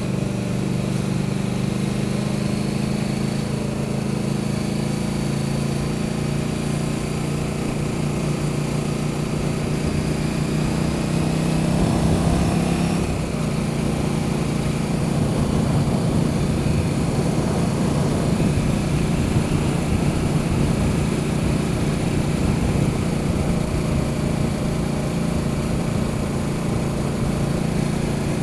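Motorcycle engine running steadily at road speed under wind rush, heard from the rider's own bike. About twelve seconds in the engine note swells briefly, then eases back to a steady cruise.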